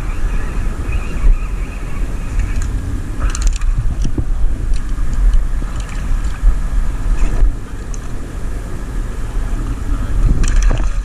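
Steady low wind rumble on the microphone over surf water, with a few short sharp clicks or splashes.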